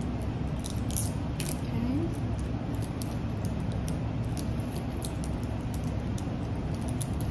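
A few faint, short metallic clicks and ticks from a key-ring clasp being worked by hand, mostly in the first second and a half, over a steady low room hum.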